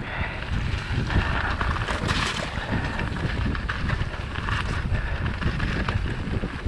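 Mountain bike rolling fast down a dirt trail, heard from a camera mounted on the bike: the steady rumble of the tyres on the ground with small knocks and rattles, under wind rushing over the microphone.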